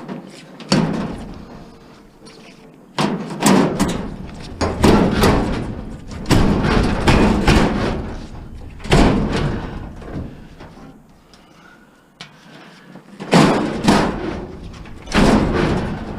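A series of loud bangs and rattles from sheet-metal appliance parts being pulled, knocked and handled as the appliance is stripped for scrap, about eight or nine irregular knocks, each trailing off briefly.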